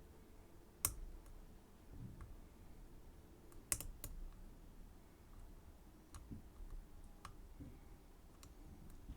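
Lock picks working in a Schlage Everest 29SL pin-tumbler lock cylinder: faint small metallic ticks and clicks, with two sharper clicks about a second in and near four seconds.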